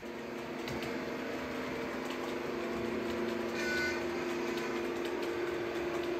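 Sound-fitted model Deltic diesel locomotive's engine drone, a steady hum of several low tones that starts abruptly, with a brief high horn toot about three and a half seconds in.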